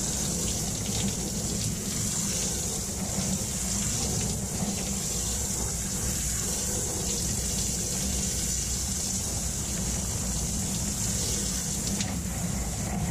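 Handheld shower head running, a steady spray of water onto a soaked fur jacket.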